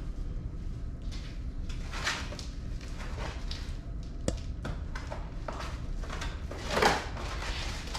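Plastic packaging wrap being pulled and stripped off a new e-bike, rustling and crinkling in scattered bursts, with a sharp click about four seconds in.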